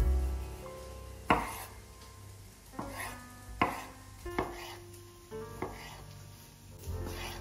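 Santoku knife slicing cherry tomatoes on a bamboo cutting board: about seven separate, irregularly spaced knocks of the blade on the board, the sharpest about a second in.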